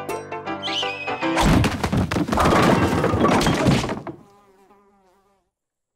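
Cartoon slapstick sound effects: a short pitched, stepped sound, then from about a second and a half in a loud crash and clatter of a brawl lasting a couple of seconds, which fades away to silence near the end.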